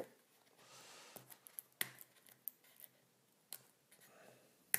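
Fingernail picking at an adhesive seal sticker on the edge of a cardboard box: a faint scratching about a second in, then a few small sharp clicks, the sharpest near the end.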